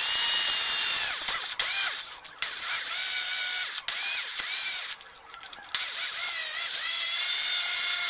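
Electric angle grinder grinding a steel shaft against its abrasive disc: a high whine that sags in pitch each time the metal is pressed in and climbs back when it eases off. It breaks off briefly a few times, longest for under a second about five seconds in.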